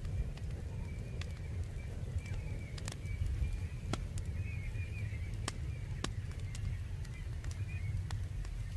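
Wind rumbling on the microphone outdoors, with faint bird chirping in the background and scattered light clicks throughout.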